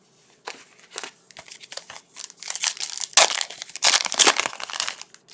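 Foil wrapper of a trading card pack being torn open and crinkled by hand, a run of crackling that builds up and is loudest in the second half.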